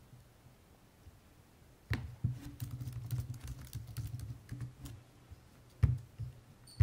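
Typing on a computer keyboard: a quick run of key clicks starting about two seconds in and lasting about three seconds, then a single louder keystroke near the end.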